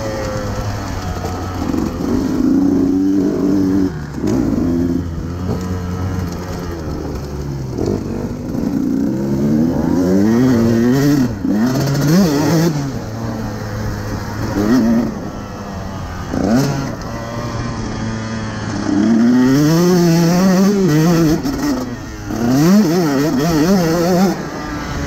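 2018 KTM 150 SX two-stroke motocross bike running hard, its engine pitch climbing and dropping again and again as the throttle is opened and shut.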